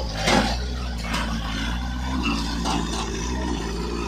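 Light truck's engine running steadily as the truck drives out of a mud rut, with a couple of brief noisy bursts in the first second or so.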